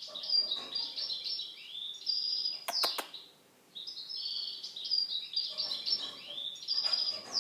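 Small birds chirping and twittering in quick high runs, pausing briefly about halfway, with two sharp clicks just before the pause.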